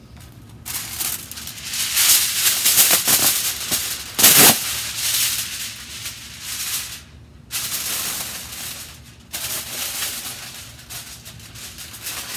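Aluminium foil crinkling and rustling as sheets are handled and wrapped around wooden pieces, in stretches with short pauses and a louder crackle about four seconds in.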